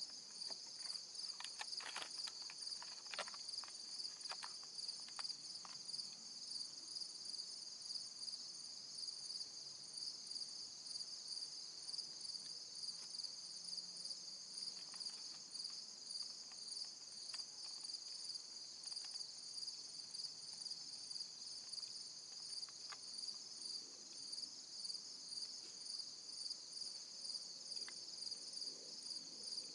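Steady, high-pitched chorus of insects, finely pulsing without a break. In the first few seconds there are a few faint sharp clicks.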